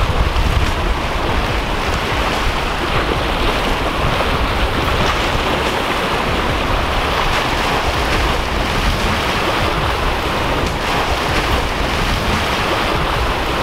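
Ocean surf breaking and washing over jetty rocks, a steady rushing wash, with wind rumbling on the microphone.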